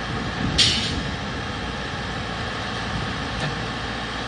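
Backhoe loader's diesel engine running steadily. About half a second in, a brief sharp high-pitched noise stands out above it, with a fainter one a few seconds later.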